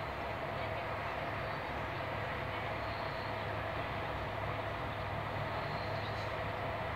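Steady running noise of a train heard from inside a Corail passenger coach travelling at speed: an even rumble of wheels on rails with a low hum, unchanging throughout.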